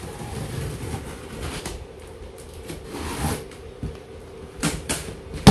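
A utility knife scraping and slicing along packing tape on a cardboard carton, with the cardboard rustling under the hands. A few sharp clicks and knocks come near the end, the loudest right at the end.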